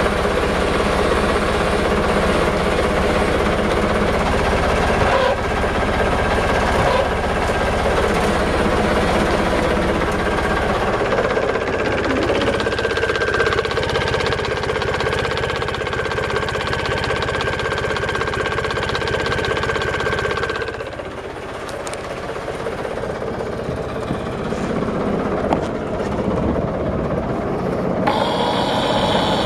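Yamaha YD25 boat's engine running steadily, its tone shifting about a third of the way in and dipping briefly about two-thirds through. Near the end a higher steady whine joins in as the electric anchor winch is switched on.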